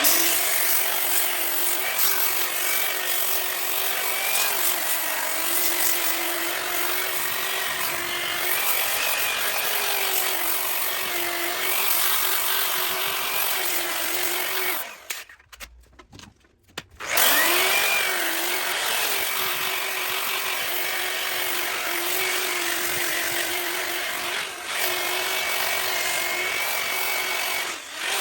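Variable-speed grinder with a sanding pad sanding the bottom of a cast iron skillet down to bare metal: a steady motor whine over a dense abrasive hiss, the pitch wavering slightly as the pad is worked across the pan. It stops about halfway through and spins back up about two seconds later.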